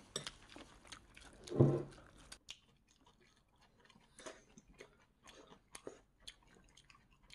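Close-up chewing of a mouthful of bibim-guksu, spicy mixed noodles with lettuce: many small wet mouth clicks and soft crunches, with a short hum of the voice about one and a half seconds in.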